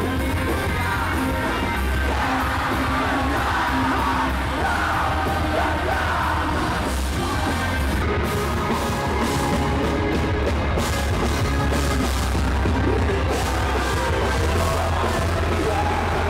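Live rock band playing loud with electric guitars and a strong, steady bass line, with a voice singing and yelling over it.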